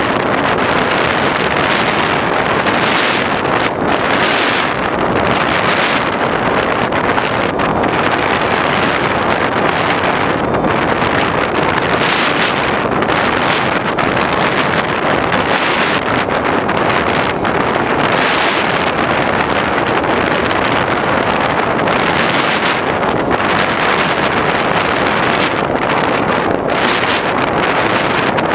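Steady rush of wind over the onboard GoPro's microphone on an X8 FPV plane in flight, loud and unbroken.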